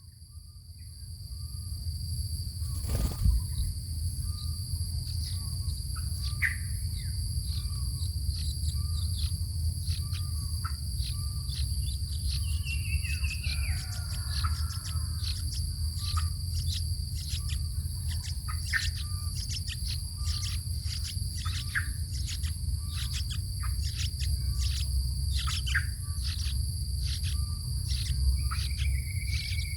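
Birds chirping in many short, quick calls over a steady, high-pitched insect drone, with a low rumble underneath.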